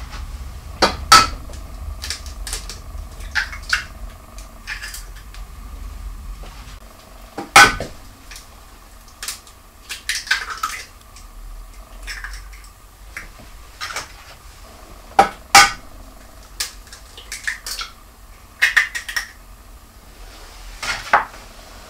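Eggs being cracked one after another on the rim of a Thermomix TM5's stainless-steel mixing bowl: sharp knocks of shell on metal, with smaller clicks as the shells are pulled apart.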